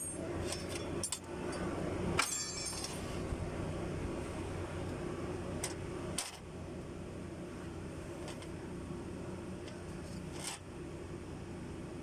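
Metal tools and engine parts clinking and tapping as an engine is taken apart: a handful of sharp separate clinks and a brief rattle about two seconds in, over a steady low hum.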